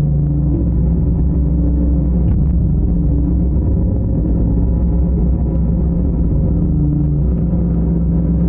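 Long-reach excavator's diesel engine running steadily under load, a deep even rumble with a held engine tone, and a faint metallic knock a little over two seconds in.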